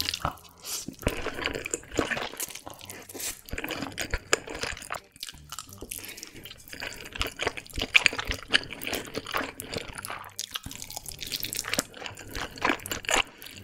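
Wet slurping of saucy noodles and chewing, an irregular run of short smacking and sucking mouth sounds as more strands are drawn in while still chewing.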